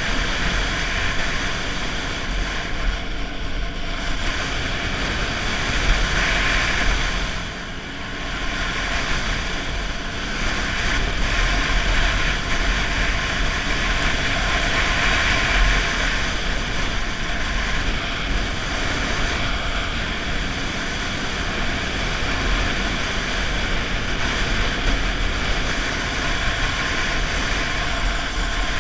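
Snowmobile engine and track running steadily at trail speed, mixed with heavy wind noise on the microphone; the sound drops briefly about eight seconds in.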